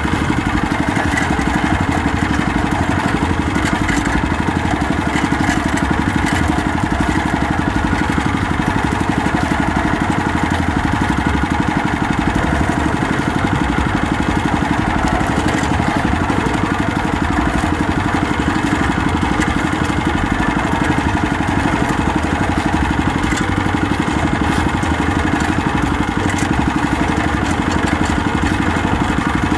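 Small fishing boat's engine running steadily at constant speed while underway, a continuous loud drone with no change.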